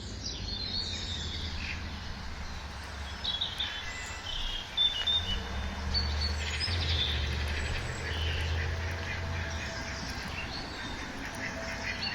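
Several birds chirping and calling in short, overlapping phrases, with a low steady rumble underneath.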